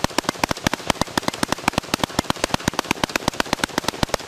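AK-pattern rifle firing a long, rapid string of shots, about eight a second, without a pause.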